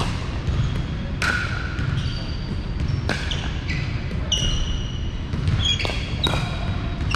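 Pickleball play on a hardwood gym floor: sharp pops of paddles hitting the ball and the ball bouncing, with sneakers squeaking briefly on the wood, over a steady low rumble.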